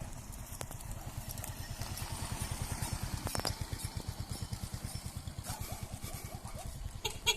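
Motorcycle engine running with a steady, evenly pulsing low exhaust beat. A short click sounds near the end.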